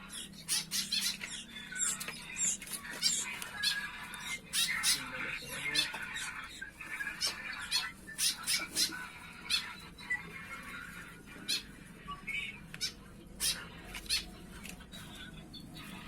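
Young sooty-headed bulbul (kutilang) chicks calling: many short, sharp calls in irregular quick runs.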